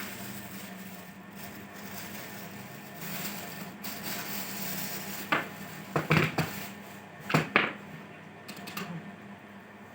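Several sharp plastic clacks from a wired computer keyboard, irregular rather than a steady typing rhythm, over a steady low hum. The clacks are bunched together about halfway through.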